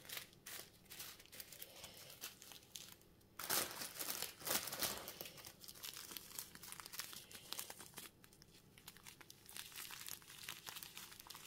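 Plastic bags crinkling as a handful of small zip bags of diamond-painting drills is picked through and gathered. The rustling comes in irregular bursts and is loudest from about three and a half to five seconds in.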